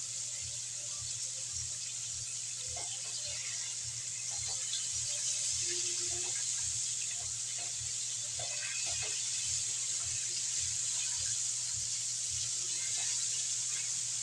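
Chicken pieces frying in hot oil in a wok: a steady sizzling hiss with scattered small crackles.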